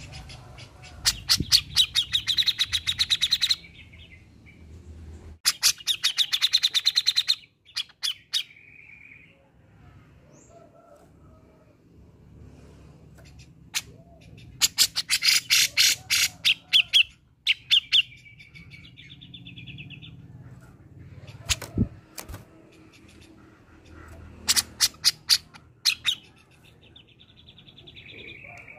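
Grey-cheeked bulbul (cucak jenggot) singing: four loud bursts of rapid, sharp repeated notes, each ending in a shorter buzzy trill, with pauses between phrases.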